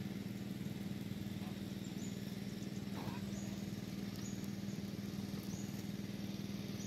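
Steady low drone of a running motor, even and unchanging, with a few faint short high chirps over it.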